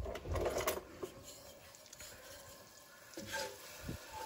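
Soft kitchen handling noise with a few light knocks. Near the end, a wooden spoon stirs butter melting in oil in a non-stick frying pan.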